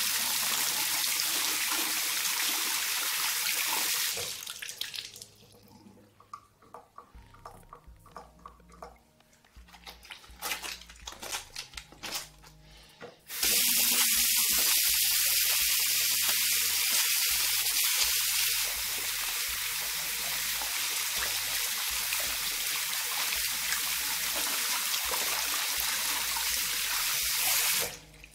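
Water running from a single-lever mixer tap into a ceramic washbasin, stopping after about four seconds. Then comes a quieter stretch of irregular wet squishing and clicking as soapy hands are rubbed together. About halfway through the tap runs again for roughly fourteen seconds, dropping a little in level partway, and cuts off suddenly near the end.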